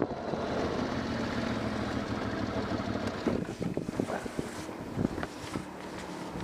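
ATV engine running steadily at low speed, with wind on the microphone. From about halfway, scattered ticks and clicks of gravel and grit thrown up around the wheels.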